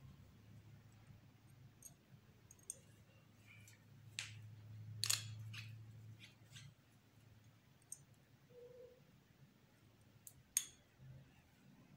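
Scattered light clicks and taps as a thin wooden stick works soil and small stones in a glass mug planter, with a cluster of taps about four to six seconds in and one sharp click near the end. A faint low hum runs underneath.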